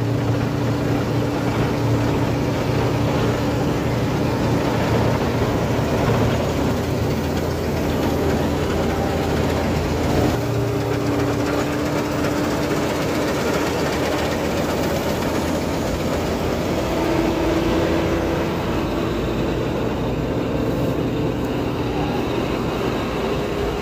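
Claas Dominator 48S combine harvester running steadily: a constant engine and machinery drone with a few held tones over a dense mechanical rush.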